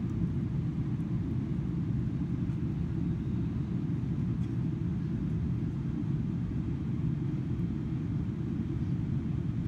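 Steady low rumble of engine and airflow noise inside the cabin of a Boeing 777-300ER airliner.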